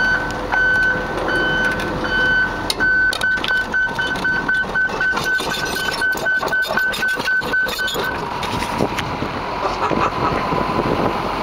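Tracked excavator moving on its steel tracks, its travel alarm beeping about once a second, then about four times a second from roughly three seconds in, with clanking and crunching from the tracks over the crushed drive debris. The beeping and clatter stop at about eight seconds while the engine keeps running.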